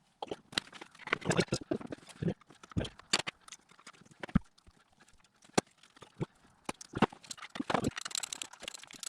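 Irregular clinks, clicks and knocks of hand tools and metal parts as coolant hoses and the thermostat housing are taken off a Suzuki Alto engine.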